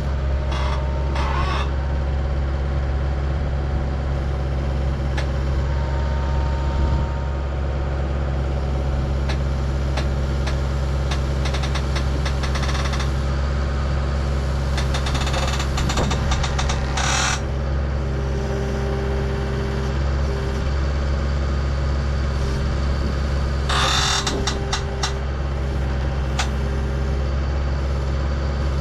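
Skid steer engine running steadily under load while lifting a heavy load with a truss boom attachment. A higher whine comes and goes twice in the second half, with a few short rattling noises.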